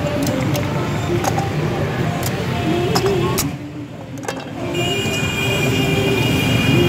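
Steady street traffic noise with scattered light metallic clinks from aluminium pan lids handled with metal tongs over charcoal stoves. The background dips briefly a little past halfway, then returns with a faint steady high whine.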